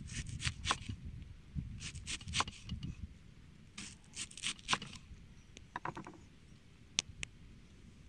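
Kitchen knife slicing a red onion on a wooden cutting board: crisp cuts through the onion and taps of the blade on the board, in short runs of a few strokes each. Near the end come two sharper single knocks on the wood.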